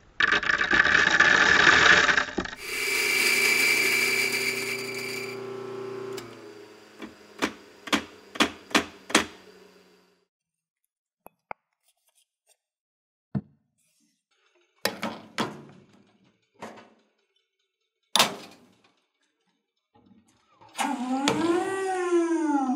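Coffee grinder grinding beans, then its motor whining on and fading, followed by five quick clicks. Later come a few separate knocks from the portafilter and tamper, and near the end an espresso machine starting a shot with a hum that rises and then falls.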